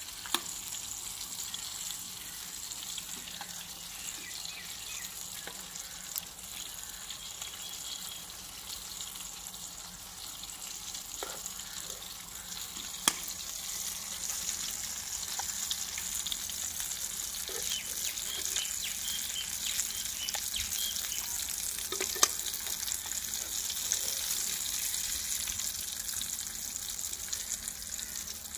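Pea patties shallow-frying in hot oil in an aluminium pan, a steady sizzle, with a few sharp clicks scattered through it.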